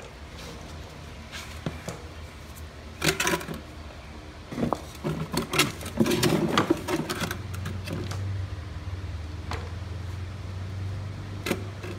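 Handling noise at the lawnmower: scattered knocks and rattles as hands work around the mower's deck and fuel hose, busiest between about three and seven seconds in. After that a steady low hum sets in.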